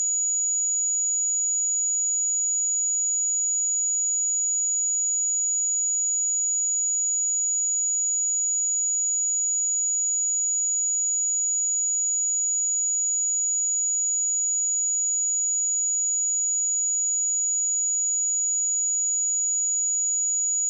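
A pure 6843 Hz sine-wave test tone, a single steady high-pitched note held without change.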